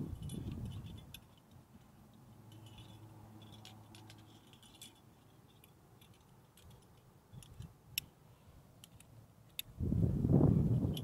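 Aluminium carabiners, quickdraws and a cam clinking and jangling against each other as climbing gear is handled, in many small scattered clinks. A louder low rumble comes in near the end.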